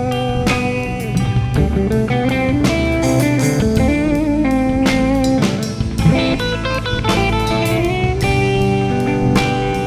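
Band music without singing: a guitar plays a lead line with bending, sliding notes over a drum kit's steady beat.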